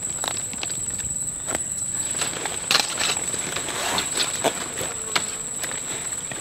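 Steady high-pitched cricket-like insect drone, with scattered clicks and rustles of a fishing hook and a plastic bucket being handled.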